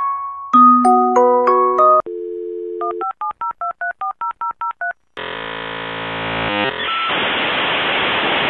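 A short run of chime-like electronic notes, then a telephone dial tone, about ten quick touch-tone (DTMF) dialing beeps, and a dial-up modem's handshake screech turning into steady hiss.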